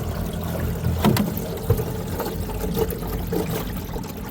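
A small boat's motor running steadily, with wind buffeting the microphone and water splashing against the hull.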